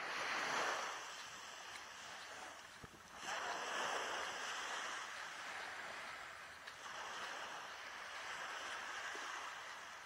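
Small waves breaking and washing up a beach, surging three times.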